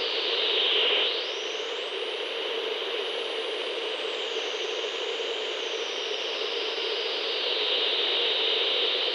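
CB radio static: a steady hiss whose top end slowly sweeps up and falls back, about a second in and again near the end, like a receiver being tuned.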